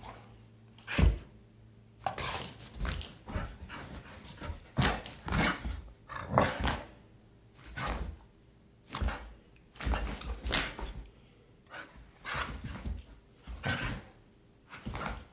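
A Doberman and a young pit bull-type dog play-fighting, giving short barks and play vocalizations in irregular bursts about once a second, the loudest about a second in.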